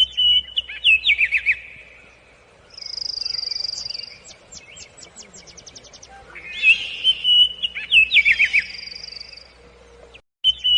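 Birds singing: repeated whistled phrases of quick up-and-down notes, a long high trill, and a fast run of ticking calls.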